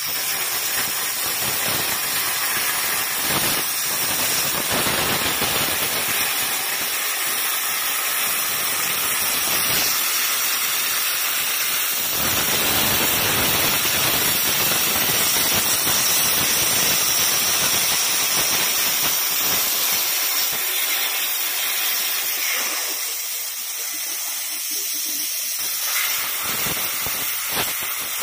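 CNC cutting torch cutting through steel plate: a loud, steady hiss with a faint high whine on top, starting abruptly as the cut begins.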